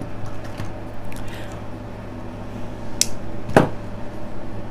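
Hands working jewelry wire and pliers: faint handling rustle, then two sharp clicks about three seconds in, the second one louder. A low steady hum runs underneath.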